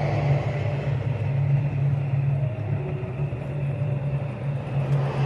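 A steady low rumble and hum, like a motor vehicle engine running.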